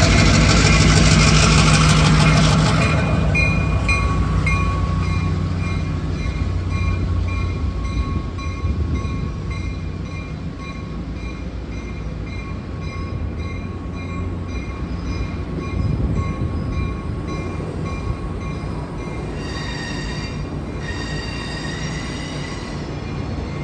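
A train rolling past. The low locomotive engine sound is loudest in the first few seconds, then eases into the steadier noise of cars going by. Through most of it, high-pitched tones pulse over and over.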